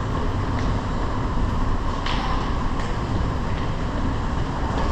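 Light-rail train running with a steady low rumble, with a few sharp clicks.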